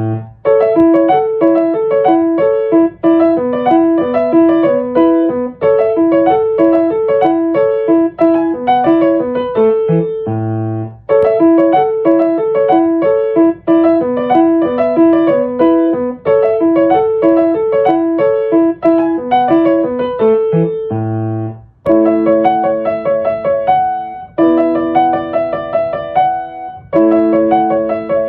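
Solo piano music, with repeating broken-chord figures. Phrases close on a low bass note about ten and twenty-one seconds in, and longer held chords follow near the end.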